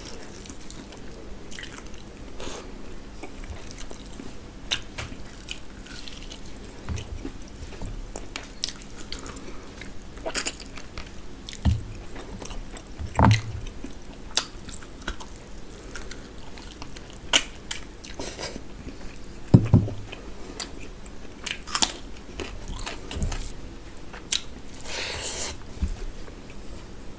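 Close-miked mouth sounds of a person eating by hand: chewing, biting and crunching at intervals, with squelching as rice and curry are mixed on a steel plate. A few louder thumps stand out, around a third and two thirds of the way through.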